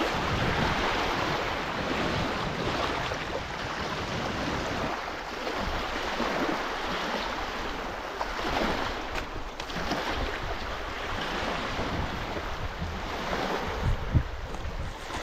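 Water washing and sloshing in the shallows, with wind rumbling on the microphone.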